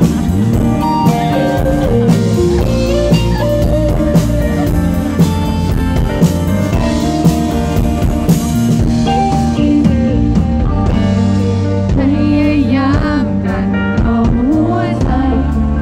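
A live band playing: acoustic-electric guitar, electric bass and a Yamaha drum kit keeping a steady beat, with a woman singing into a microphone.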